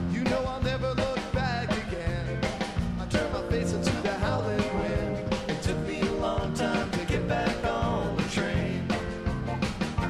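Live rock band playing: electric guitars, bass, keyboards and a drum kit on a steady beat, with sung vocals.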